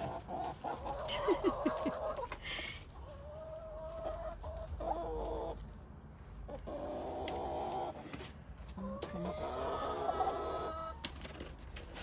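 Chickens clucking and calling: a run of drawn-out calls about a second or two each, one after another, with a few short clucks about a second in.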